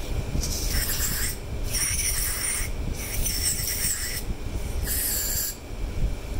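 Four rasping strokes of about a second each, with short gaps between them, over a steady low fan rumble.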